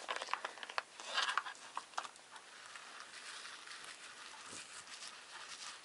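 Plastic mayonnaise pouch crinkling and crackling as it is squeezed, a flurry of small crackles in the first two seconds, then a metal spoon faintly scraping as it spreads mayonnaise over thin lavash.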